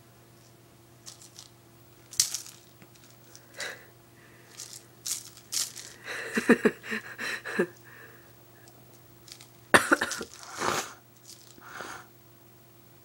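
Kittens pawing and batting a small toy against the bottom of a wooden door: a run of irregular rattles, knocks and scrapes, busiest around the middle and again about ten seconds in.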